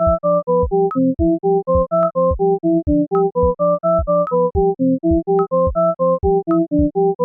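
Background music: a bright synthesizer keyboard tune of short notes, about three a second, stepping up and down over a held low note and a steady low drum beat.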